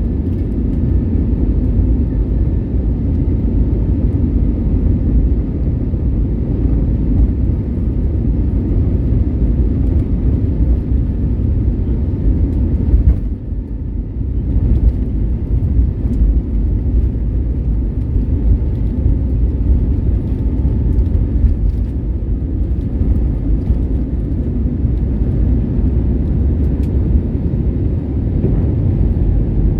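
Airbus A320neo cabin noise: a steady, loud low roar from the CFM LEAP-1A engines at high thrust, with rushing air, during takeoff and climb. The roar dips briefly about a third of the way in.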